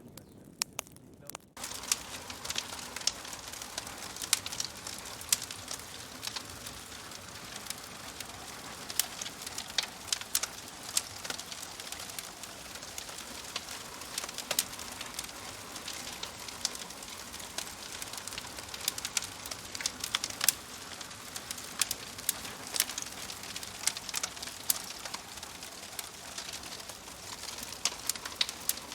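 Wood fire burning in a fireplace: a steady hiss of flames with frequent sharp crackles and pops of burning logs. The fire sound comes up suddenly about a second and a half in, after a quieter start.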